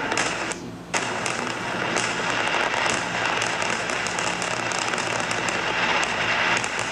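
Fireworks crackling and popping in a dense, continuous stream of many small reports, with a brief dip about half a second in.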